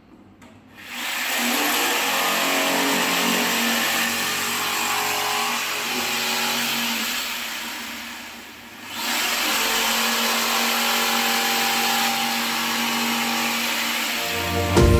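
Corded Makita jigsaw starting about a second in and cutting through an SPC vinyl floor plank, its motor running steadily. The sound fades away briefly just past halfway, then the saw runs again.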